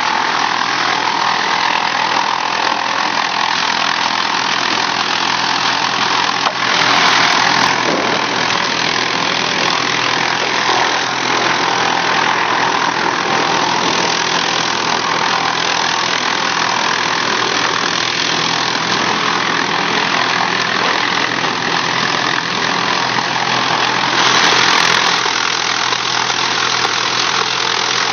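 Wood chipper running steadily under load: a constant engine hum beneath dense grinding noise, swelling louder twice, about seven seconds in and again near the end.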